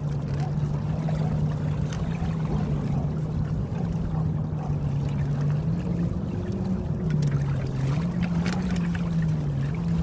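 Small inflatable sailing catamaran underway: water rushing past the hulls and wind noise, with a steady low hum that starts to waver up and down in pitch about halfway through.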